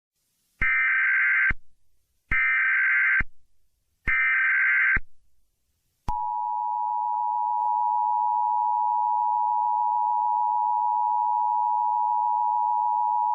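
Emergency Alert System tones: three short bursts of SAME header data, each a harsh digital warble about a second long and a second apart. About six seconds in, the steady two-tone EAS attention signal begins and sounds on.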